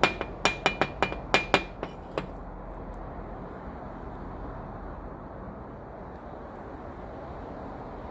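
A quick run of about nine sharp metallic clinks and taps with a bright ringing note, as small metal parts or tools are knocked together, over in the first couple of seconds. After that there is only a steady low hum.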